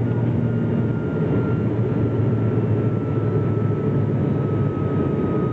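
Cabin noise of an ATR 72 turboprop climbing after takeoff: a steady low propeller drone over the engines' rumble, with a faint high whine that slowly falls in pitch.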